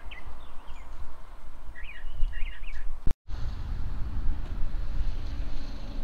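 Wind rumbling and buffeting on the microphone, with small birds chirping in a couple of short quick phrases around two seconds in. The sound drops out for a moment near the middle, then the wind rumble carries on under a faint steady high hiss.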